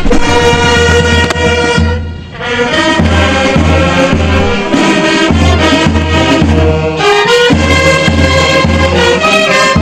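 Military brass band playing: a brass melody over a steady, repeating low beat, with a brief dip in loudness about two seconds in.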